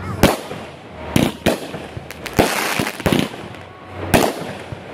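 Aerial fireworks going off: a string of about six sharp bangs at uneven intervals, with a stretch of crackling after the bang near the middle.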